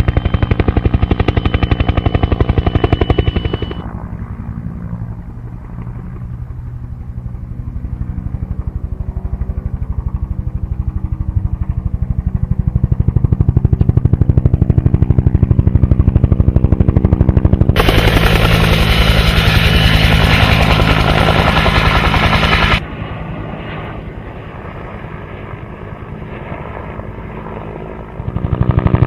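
Aircraft engine heard from inside the cabin in flight: a steady, rapid pulsing drone. It jumps abruptly in loudness and tone several times, about 4, 18, 23 and 28 seconds in.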